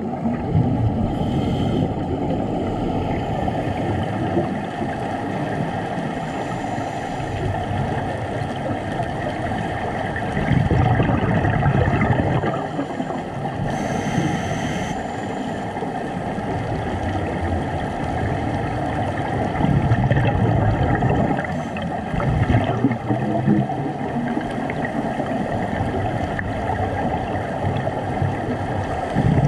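Scuba divers' exhaled regulator bubbles gurgling underwater: a low rush that swells in surges of a second or two every several seconds, over a faint steady hum.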